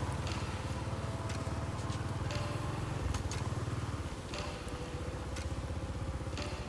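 Small motorcycle engine running steadily as it rides through shallow floodwater on a flooded street, with short sharp noises about once a second.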